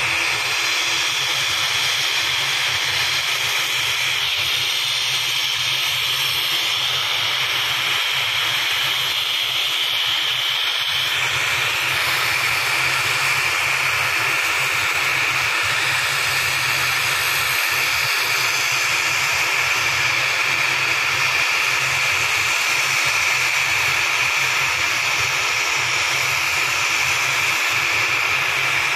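ATR 72 airliner's turboprop engines running on the ground with the propellers turning: a steady high whine over a low hum.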